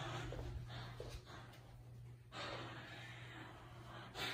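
Close breathing sounds, with a longer breath in the second half, over a steady low hum.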